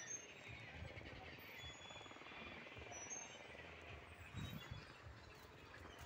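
Faint outdoor ambience: a few brief, high chirps from distant birds over a steady hiss, with low rumbling bumps on the microphone.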